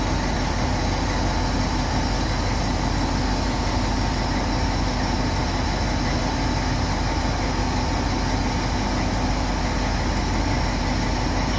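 FS D.345 diesel-electric locomotive idling steadily at a standstill, its engine giving an even, unchanging hum.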